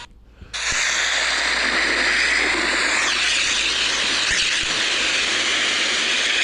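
Steady rushing roar of a curling ocean wave, a sound effect on the soundtrack of a surfing cartoon bumper. It cuts in about half a second in, after a short gap.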